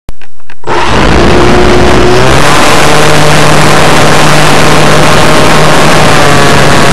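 Electric brushless motor and propeller of an RC Super Cub model plane, running on a 3-cell LiPo, heard from a camera on board the plane under very loud wind rush. A click at the very start, then the noise comes in suddenly; the motor's hum steps up in pitch a little over two seconds in.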